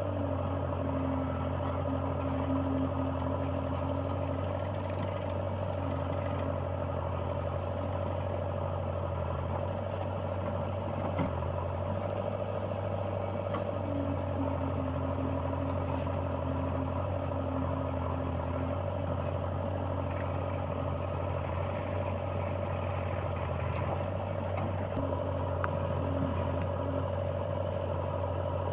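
JCB 3DX backhoe loader's diesel engine running steadily as it works. A higher tone rises over it and drops away again about four times.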